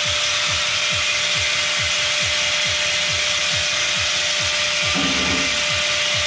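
A power tool running steadily, a constant whine over a hiss, under background music with a bass beat about two and a half times a second.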